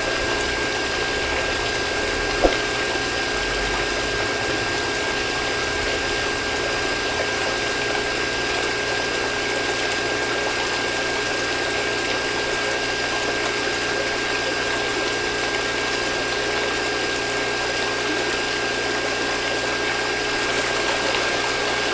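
Small motor-driven mini water pump running steadily with a constant whine, water flowing through it, and a single click about two and a half seconds in.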